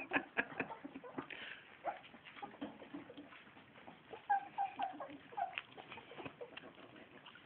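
Young puppies eating from a shared dish: faint smacking and lapping clicks, with a quick run of short, high squeaks a little past halfway.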